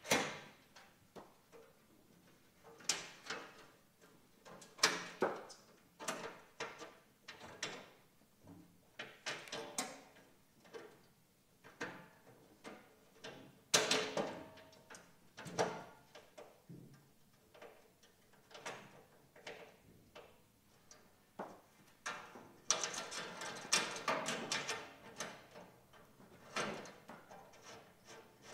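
Metal camp kitchen box being handled: irregular clicks, knocks and clanks as its shelves and slide bars are moved and set in place, with a longer run of rattling and scraping about three-quarters of the way through.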